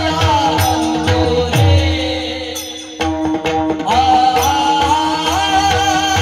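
Marathi devotional bhajan: a voice singing a wavering melody over a steady held note with tabla-style drumming. The singing and drums drop out briefly about two seconds in, leaving the held note, and come back in sharply about three seconds in.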